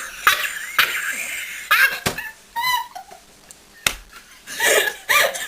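People laughing hard and nearly silently, in breathy gasps with a few high squeaks. Two sharp slaps come about two seconds and four seconds in.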